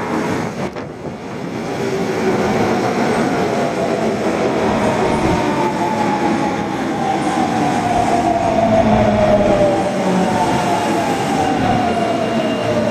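Osaka Metro Tanimachi Line 22-series subway car running, with steady wheel and running noise. Through the second half a motor whine glides slowly down in pitch as the train slows.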